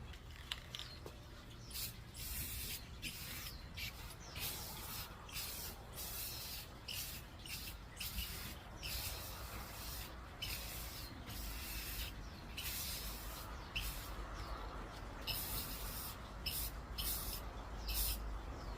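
Aerosol spray can hissing in many short, irregular bursts, each under a second.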